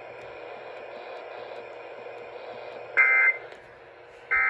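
Faint radio hiss, then two short bursts of Emergency Alert System digital data tones about 1.3 s apart, heard over a radio broadcast. This is the EAS end-of-message code that closes the alert.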